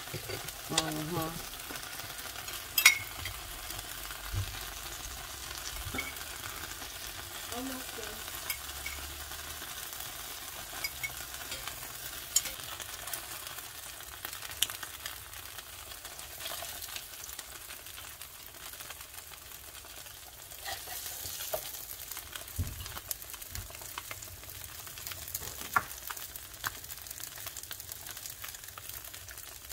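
Tacos frying on a griddle: a steady sizzling hiss, with scattered clicks and knocks of utensils and a plate, one sharp click about three seconds in.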